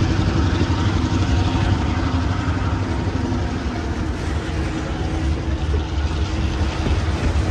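Diesel locomotive running with a steady low rumble.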